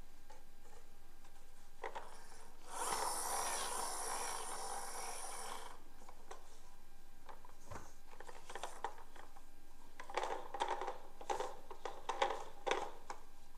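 Plastic toy vehicles being handled in a cardboard box. A rubbing, scraping noise lasts about three seconds, then a run of light plastic clicks and knocks follows as the toy fire truck is lifted out.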